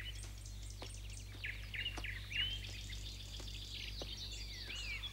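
Small birds chirping and twittering, many short overlapping chirps and whistles, over a faint steady low hum.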